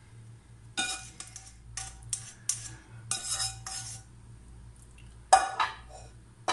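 A spatula scraping and tapping against a cooking pot and a plate while spreading masala over fried eggplant slices: a run of short scrapes and knocks, then one sharper knock about five seconds in.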